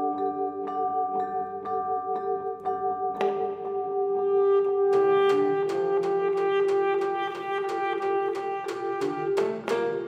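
Contemporary chamber ensemble of alto saxophone, electric guitar, vibraphone and piano playing. Evenly pulsed struck chords come about two a second, quickening to about three a second around halfway, under a long held note that swells about four seconds in.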